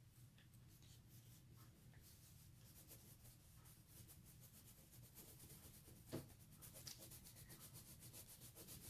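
Faint scratching of a coloured pencil shading on paper in quick back-and-forth strokes that become steadier and more even toward the end, with one soft knock about six seconds in.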